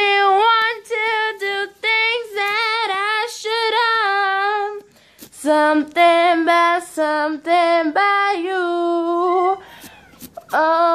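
A female voice singing unaccompanied, in long wavering phrases with vocal runs and no clear words, pausing briefly about five seconds in and again near ten seconds in.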